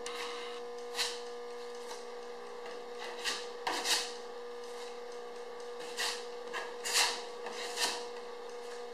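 Plastic spreader scraping body filler, a handful of short scrapes a second or so apart as the filler is scooped off the mixing board and spread onto the car's bodywork. A steady hum runs underneath.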